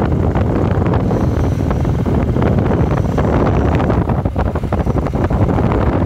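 Steady wind rumble on the microphone of a moving two-wheeler, with the vehicle's running noise underneath.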